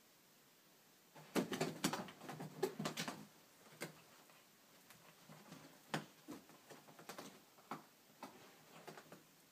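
A kitten scrabbling and tumbling on carpeted stairs while chasing its tail: a busy flurry of soft thumps and claw scratches about a second in, then scattered taps and bumps.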